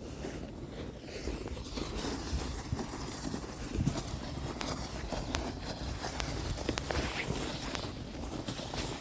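Footsteps through snow: an uneven run of short crunches and clicks.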